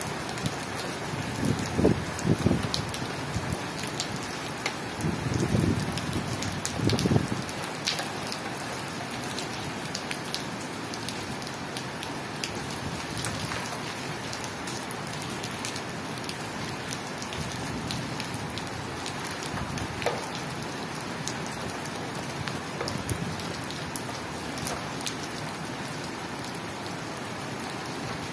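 Steady rain falling on a flat tiled rooftop: an even hiss with scattered sharp ticks of nearby drops. A few louder low rumbling thumps come in the first eight seconds.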